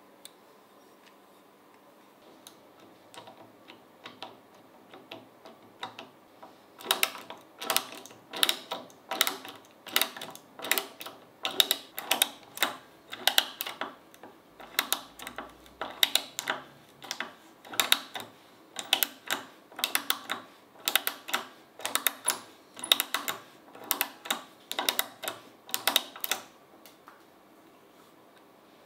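Restored 1890s Weltrecord ratchet screwdriver turning a wood screw in a wooden block, its ratchet mechanism clicking in short bursts about twice a second. A few faint clicks come first, then the steady clicking starts several seconds in and stops shortly before the end.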